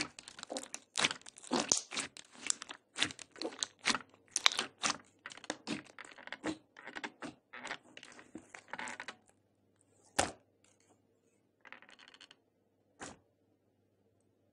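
Glossy red slime squished and kneaded by hand: a quick run of short, sticky squishes and crackles for about nine seconds, then just a few single squishes as it is pressed flat.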